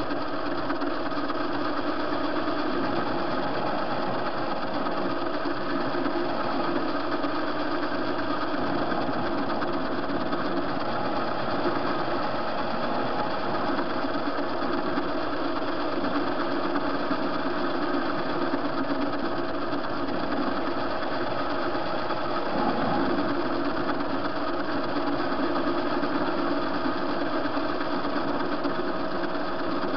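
TV-16 metal lathe running, with a steady machine hum and a constant whine.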